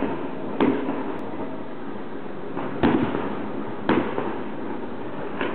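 Aerial fireworks bursting: four sharp bangs, irregularly spaced a second or two apart, over a steady hiss.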